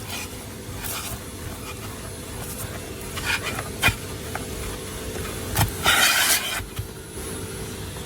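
Vacuum cleaner running with a steady hum as it cleans dirt out of a car interior, with scraping, hissing bursts as debris is sucked up, the loudest just after halfway, and a sharp click a little before that.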